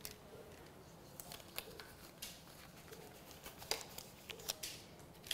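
Faint, scattered small clicks and rustles of sterile medical supplies (syringes, needle, packaging) being handled.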